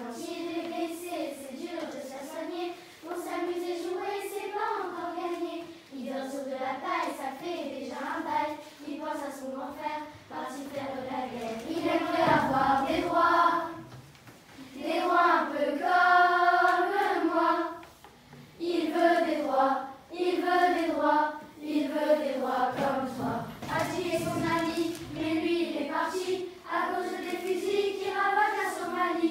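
A class of young children singing a song together in unison, in phrases with short breaths between them.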